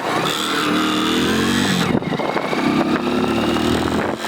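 Hero Splendor motorcycle's single-cylinder engine revving up twice, with a clicking rattle from the front visor. The rattle comes from loose parts at the front: slack cable free play, the number plate or the fairing.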